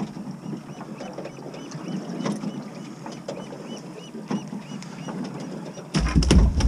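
A fishing reel being cranked, making a light repeated mechanical clicking about four times a second, with scattered small clicks. About six seconds in, a loud low rumble hits the microphone.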